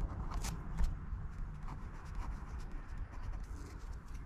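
Ballpoint pen scratching on paper as a word is handwritten, a few short strokes over a low, steady rumble.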